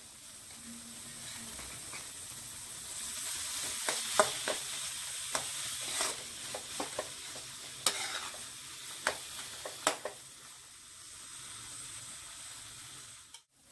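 Grated paneer and masala sizzling in a metal kadhai while a spatula stirs and scrapes through it, with scattered sharp clicks of the spatula against the pan. The stirring eases off in the last few seconds, leaving a softer sizzle.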